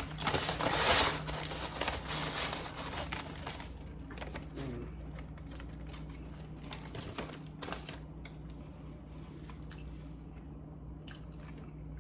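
Paper or foil food wrapper crinkling as it is handled, loudest about a second in, then fainter scattered rustles and clicks.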